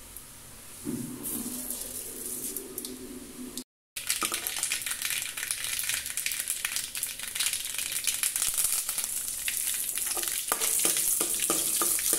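Mustard seeds spluttering in hot coconut oil in a metal kadai for a tempering. A soft sizzle comes first, then from about four seconds in a dense, loud crackle of popping seeds, with curry leaves frying in the oil near the end.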